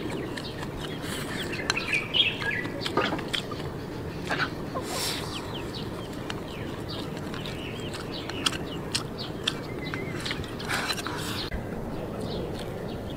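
Eating sounds: chopsticks clicking against a ceramic bowl and chewing of rice. Birds chirp in the background, most clearly in the first few seconds.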